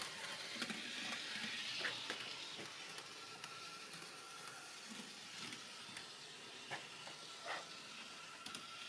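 Small electric motor of a model rail-road bus running along the model railway track, a faint steady whirring hiss that is a little louder in the first two seconds as it passes close by.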